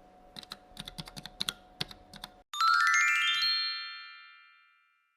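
Computer keyboard typing: about two seconds of quiet, irregular key clicks. Then a bright rising run of chime notes, a sparkle sound effect, rings out loudly and fades away over about two seconds.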